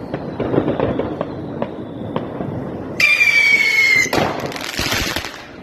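Fireworks going off: a string of crackles and pops, then about three seconds in a slightly falling whistle lasting about a second, followed by a loud hiss that fades away.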